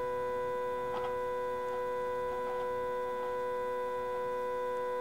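IntelliQuilter Y-axis drive motor spinning its drive wheel in roller-cleaning mode: a steady electric whine made of several fixed pitches, with a faint tick repeating about every three-quarters of a second.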